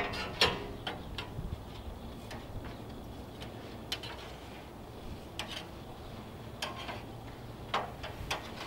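Scattered light clicks and knocks, about ten at uneven intervals, as meat is moved about on the metal cooking grates of an Old Country Angus offset smoker.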